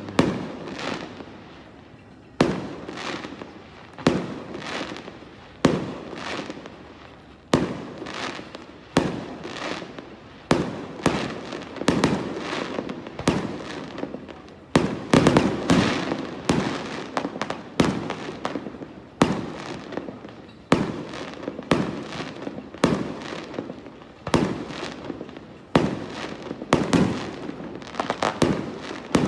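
Aerial fireworks going off in a steady barrage, one sharp bang every second or two, each trailing off in echo and crackle.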